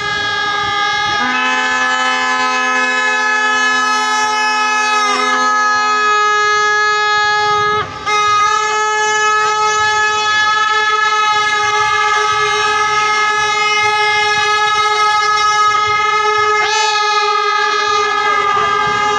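Several handheld horns sounded together by a marching crowd, holding long steady notes at different pitches that overlap without pause, with a brief break about eight seconds in.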